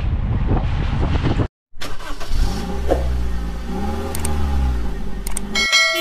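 Steady road and wind rumble from a car driving, cut off sharply about a second and a half in. After a brief silence, outro sound effects follow: a low engine-like hum with a pitch that rises and falls, a few sharp clicks, and a bright electronic chime near the end.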